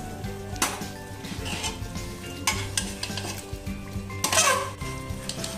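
Metal spatula stirring chicken curry in an aluminium pressure cooker, scraping and clinking against the pot as the gravy sizzles. The loudest scrape comes about four seconds in.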